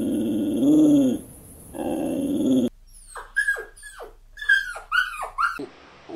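A small-breed puppy growling twice, low and rumbling, then a puppy giving about six short, high-pitched yelps that each fall steeply in pitch.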